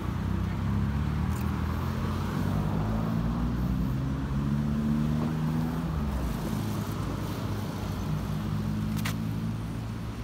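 Road traffic: motor vehicle engines running steadily at low revs, their pitch drifting slowly. A single sharp click comes near the end.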